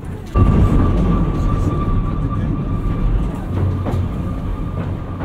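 Ikawa Line passenger train running, heard from inside the coach: a loud, steady rumble of wheels on rail that steps up suddenly just after the start as it crosses onto a bridge, with a thin steady whine over it and a few rail-joint clicks about four seconds in.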